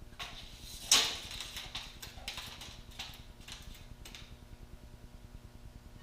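Handling noise while measuring: a sharp knock about a second in, then several lighter clicks and rattles, over a steady low hum.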